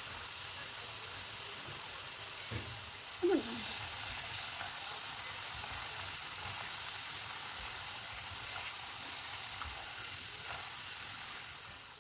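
Cornstarch-coated potato fries sizzling in hot oil in a pan, a steady frying hiss, as a slotted spatula stirs them and lifts them into a wire strainer. A light knock comes about two and a half seconds in and a short falling squeak just after, and the sizzle eases near the end.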